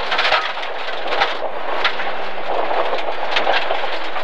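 Inside the cabin of a BMW E30 325i rally car at speed on a rough stage: a dense rush of engine, tyre and road noise with frequent sharp knocks and rattles from the car bouncing over the bumps.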